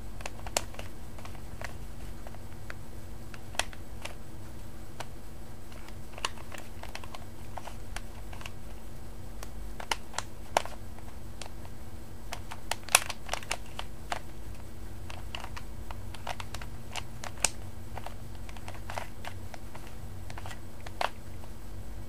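Plastic Rubik's Cube being turned by hand in a solve: irregular clicks and clacks as the layers are twisted, with a cluster of louder snaps a little past halfway, over a steady low hum.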